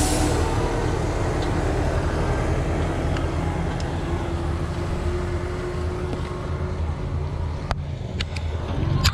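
Road traffic: a heavy truck's engine running and fading away, over a steady rushing noise, with a few sharp clicks near the end.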